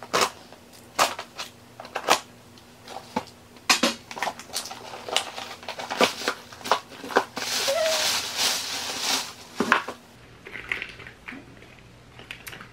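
Scissors cutting the tape on a cardboard box, then the box being handled and pulled open: a run of sharp clicks, scrapes and knocks, with a longer rustle of packing about eight seconds in.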